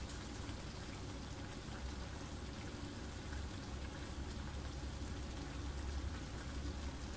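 Faint crackling simmer of creamy chicken pot pie filling in a frying pan on a gas hob, over a low steady hum.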